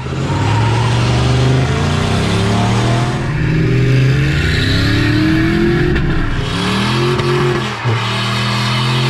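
Ford F-150 pickup's 5.4-litre V8 accelerating hard, its pitch rising again and again as it pulls through the gears. There is a brief drop near the end as it shifts.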